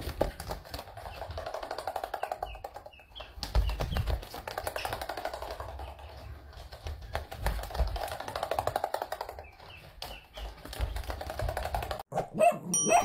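A runner duckling's webbed feet patter fast and lightly on a wooden floor, with a few heavier footfalls among them. Near the end a rising swoosh and a ringing ding sound.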